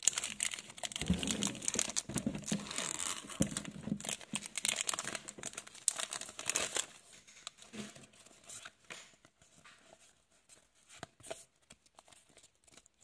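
Foil wrapper of a Pokémon Chilling Reign booster pack being torn open and crinkled by hand, a dense crackling for about the first seven seconds. After that come quieter, sparse light clicks and rustles as the stack of cards is pulled out and handled.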